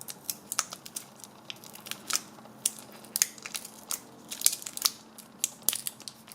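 Hands handling a tire plug repair kit, taking out a sticky repair plug: a string of irregular small clicks, crinkles and rustles.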